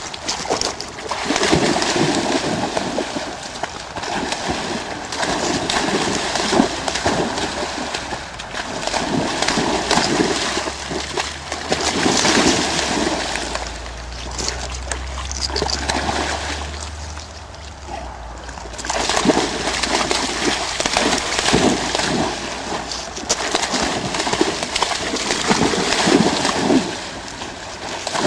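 Dog splashing through a shallow river, the splashes coming in surges every couple of seconds, with a brief lull about two-thirds of the way through.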